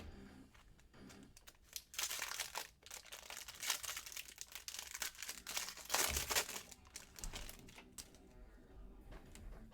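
Plastic-foil wrapper of a baseball card pack crinkling and tearing as it is handled and opened, in crackly bursts from about two to seven seconds in, loudest around two and six seconds.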